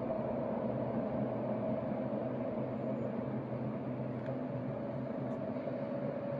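Rhaetian Railway passenger train hauled by a Ge 4/4 III electric locomotive running across a stone viaduct, heard from across the valley as a steady rumble with a constant hum.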